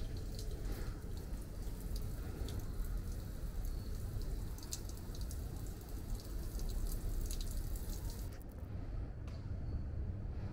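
Water dripping: a run of small, sharp drips over a steady low rumble, with the drips stopping about eight seconds in.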